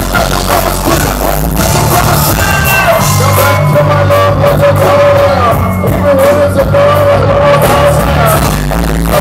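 Loud live band with bass guitar and drums, a male vocalist on a handheld microphone singing long held notes over it, heard from the crowd.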